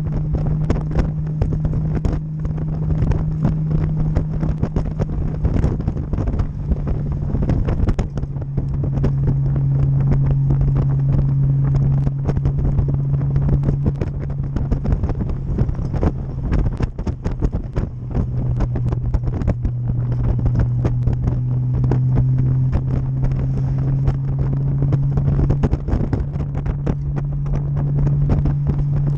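Motorcycle engine running at cruising speed, its hum stepping down in pitch about a quarter of the way in and again just past halfway, then climbing near the end, with wind buffeting the microphone throughout.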